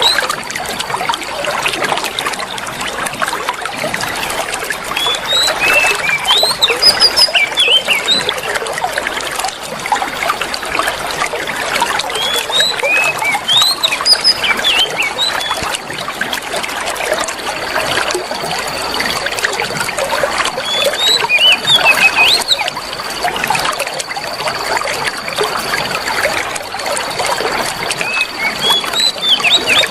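Water trickling steadily, like a small fountain or stream, used as bird-therapy sound. Songbird chirps come over it in short clusters every few seconds. A thin, steady high tone joins about halfway in.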